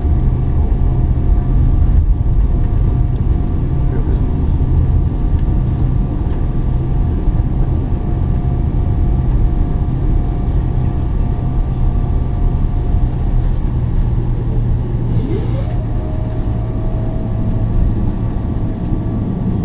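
Cabin noise of a Boeing 777-300ER taxiing: a steady low rumble from its GE90 engines at taxi power, with a steady whine on top. About fifteen seconds in, a whine rises in pitch and then holds steady.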